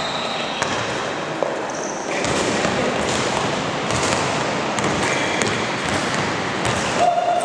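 Basketball being dribbled on an indoor court amid the general noise of a game in progress, with sharp knocks and a few brief high tones now and then.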